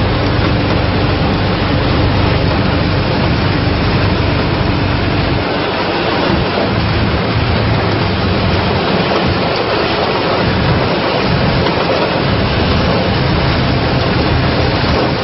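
Combine harvester running in the field: a loud, steady mechanical rush with a low engine hum.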